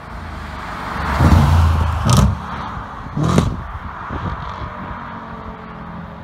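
Audi RS4 B8's 4.2 V8 with a tuned aftermarket exhaust, accelerating hard and loud, with two sharp bangs about two and three seconds in; afterwards the engine sound settles to a steadier, quieter level.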